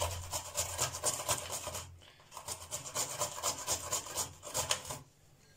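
Carrot being grated on a handheld plastic grater: quick, repeated rasping strokes of the carrot across the grater's blades, with a short break about two seconds in, then more strokes that stop shortly before the end.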